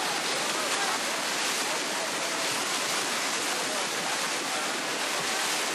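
Bluefin tuna trapped in an almadraba net thrashing their tails, churning the water into continuous, dense splashing.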